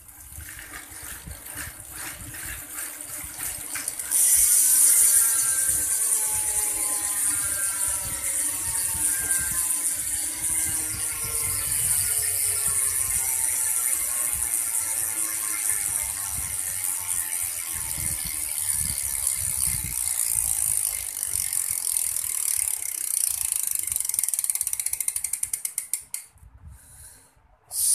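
El Matador BMX cassette hub freewheeling: its pawls ratchet in a loud, fast clicking buzz as the rear wheel, spun up to full speed, coasts. The clicking slows steadily and dies out near the end. The pawl springs have been modified to make it noisy.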